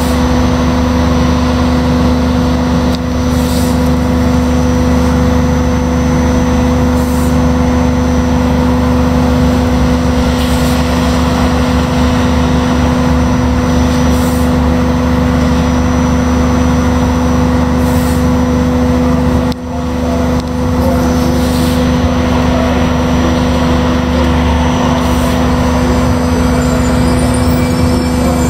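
Trolleybus riding, heard from inside the passenger cabin: a steady electric hum with two constant tones over road and tyre noise, with faint hissy pulses about every three and a half seconds.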